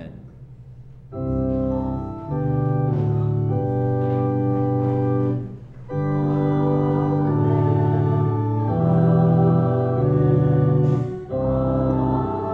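Organ playing slow, held chords of an Amen response, starting about a second in. The chords come in phrases, with short breaks about six and eleven seconds in.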